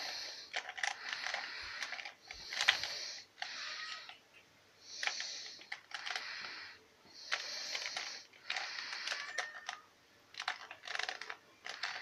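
A 2x2 Rubik's cube being turned quickly by hand: its plastic layers click and scrape in bursts about a second long, with short pauses between them.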